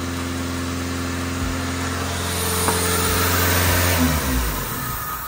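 Toyota Corolla wagon's four-cylinder engine running steadily, revved up for a couple of seconds about halfway through, then the revs fall away near the end.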